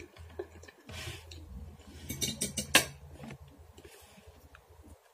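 A metal fork clinking against dishware several times, the loudest clink near three seconds in, while someone eats and chews a boiled egg.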